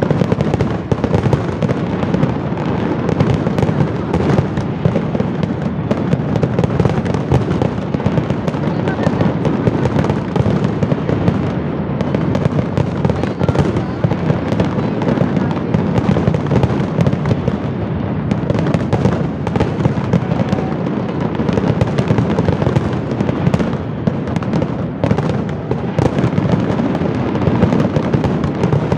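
A large aerial fireworks display: many shells bursting in quick succession, their bangs and crackle running together into one continuous, loud barrage.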